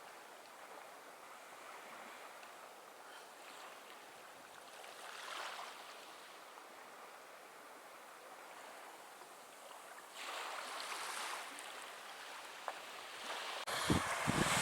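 Ocean surf washing on a beach, fairly faint, swelling about five seconds in and again around ten seconds. Wind starts buffeting the microphone near the end.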